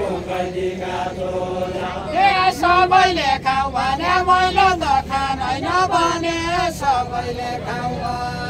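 Voices singing a Nepali deuda folk song unaccompanied, a chant-like melody in long held notes. The singing grows louder about two seconds in.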